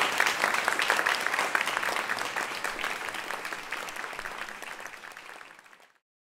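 Audience applauding, fading away over the last few seconds and cutting off sharply about six seconds in.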